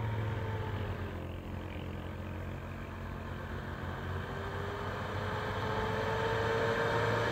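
Motor vehicle engine running steadily with a low hum and a faint whine that rises slowly in pitch, getting gradually louder.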